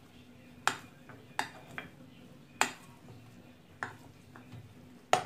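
Spoon stirring thick cake batter with grated chocolate in a glass bowl, knocking against the glass in several sharp clinks at uneven intervals, the loudest near the end.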